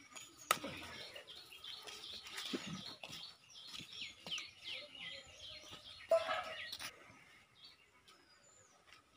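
Small birds chirping in quick, repeated short calls, busiest through the first several seconds and thinning out near the end, with a sharp click about half a second in.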